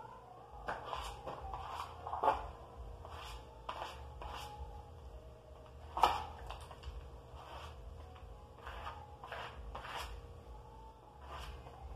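Plastic spatula scraped in short, repeated strokes over a wall skimmed with slow-setting plaster mixed with wall putty, smoothing the final coat. Two sharper knocks stand out, the louder about six seconds in.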